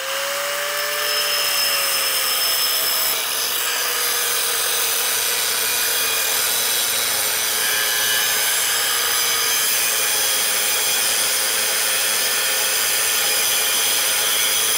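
Makita angle grinder with a thin cut-off wheel reaching full speed and then cutting a fish-mouth notch into a steel tube held in a vise. A steady motor whine with the hiss of the wheel grinding through the metal, the pitch sagging a little under load.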